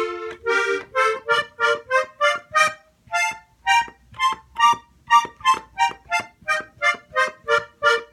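Hohner diatonic button accordion playing a scale in thirds on its outer row of treble buttons: short, separate two-note chords at about three a second, climbing and then coming back down.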